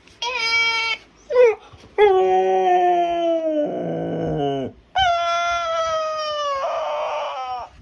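A dog howling: a short howl, a brief yelp, then two long drawn-out howls, each sliding down in pitch and turning rough near its end.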